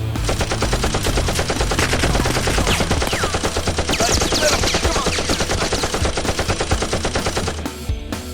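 Rapid automatic gunfire, a machine-gun sound effect firing a long continuous burst over background music; it stops shortly before the end.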